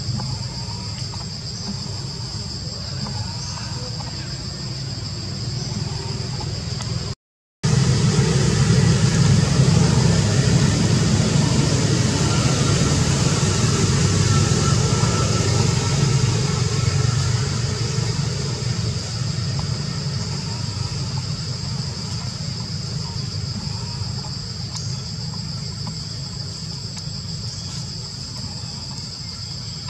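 Steady high-pitched insect drone over a low rumble, in forest outdoors. The sound cuts out completely for a moment about seven seconds in, then comes back with the rumble louder, easing off toward the end.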